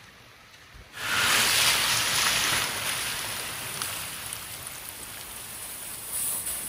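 Rushing water of a rain-swollen river: a loud, even rush that comes in suddenly about a second in and slowly eases.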